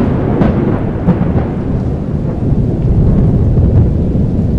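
Thunderstorm: a continuous low rumble of thunder over rain.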